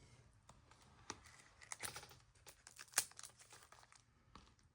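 Faint crinkling and scattered light ticks of trading cards and their plastic pack wrapper being handled, with the sharpest tick about three seconds in.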